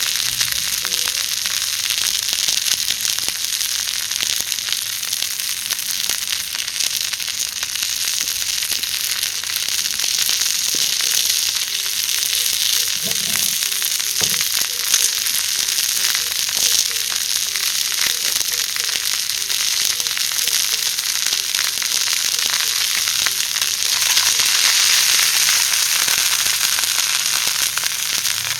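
Thin-sliced pork wrapped around rice balls sizzling as it cooks over a wood fire, a steady dense crackle that swells louder for a few seconds near the end.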